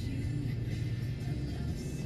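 Background music with steady held notes over a full low end.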